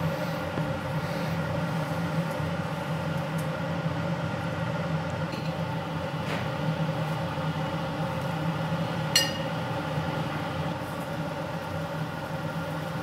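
Beef tongue sizzling faintly on a wire grill over a yakiniku table burner, under a steady mechanical hum. A single sharp metal clink comes about nine seconds in.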